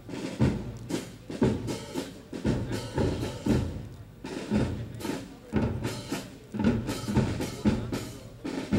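Marching band drums playing a steady march cadence, with bass drum hits about twice a second under the snare.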